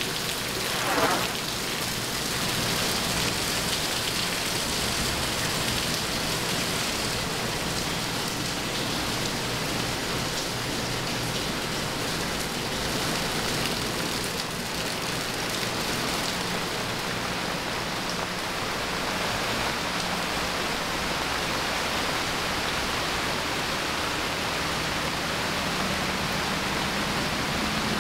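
Steady rain falling, an even hiss with no letup. About a second in, a brief falling whoosh rises above it.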